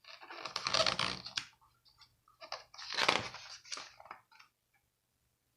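Paper pages of a picture book being handled and turned, giving two bursts of crinkly rustling, the second about two and a half seconds in.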